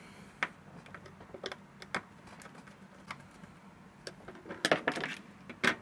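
Small clicks and light scrapes of a small screwdriver working the screw terminals of an amplifier board's terminal strip as speaker wires are fastened in, a few separate clicks, then a quicker cluster about four to five seconds in.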